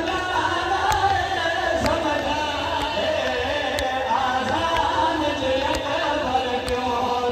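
A noha, a Muharram lament, chanted by singing voices over a sharp, regular beat at about one stroke a second.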